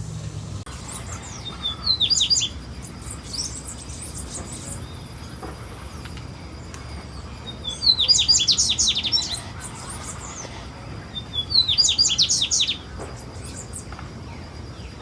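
A songbird singing a repeated phrase of quick, falling high notes, three times: near the start, about eight seconds in, and about twelve seconds in.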